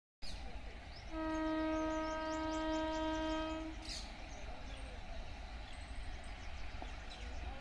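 WAG-7 locomotive's air horn sounding one long, steady single-tone blast of about two and a half seconds, starting about a second in. A steady low rumble runs under it.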